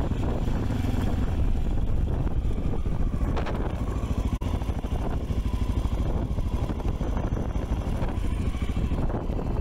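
Motorcycle engine running steadily, with a fast even pulse of firing strokes.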